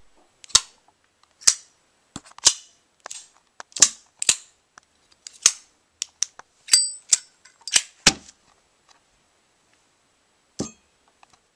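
A string of sharp clicks or snaps, about a dozen at uneven intervals over some eight seconds, then one more a couple of seconds later.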